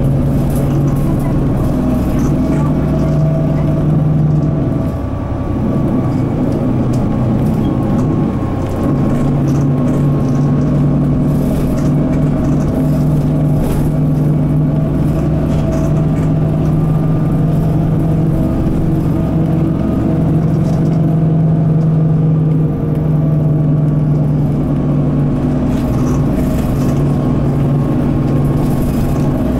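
Mitsubishi Fuso Aero Midi MK bus's 6M61 inline-six diesel running under way, heard inside the cabin. Its steady note falls away for a few seconds about five seconds in and briefly again a little past twenty seconds, with changes of gear on the five-speed manual gearbox.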